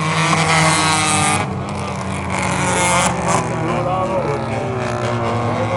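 Several small race cars running around an oval track, engines droning steadily, with a louder rush as cars pass close in the first second and a half.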